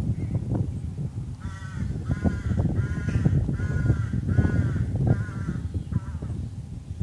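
A crow cawing about seven times in a quick, even series, over the low rumble of a train running through the station.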